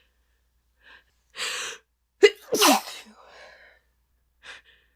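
A woman sneezing once, no longer holding it back: a sharp in-breath about a second in, a quick catch, then the full sneeze with its pitch falling away. It is an allergy sneeze set off by dust.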